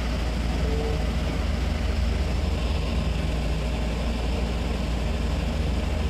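Steady low rumble of running industrial air-conditioning machinery, even throughout with no rhythm or change.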